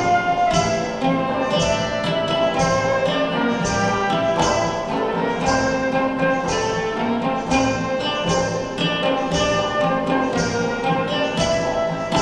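Small acoustic ensemble playing an ancient Greek medley: a flute carries the melody over plucked lute-type strings, with frame drums beating a steady, even pulse.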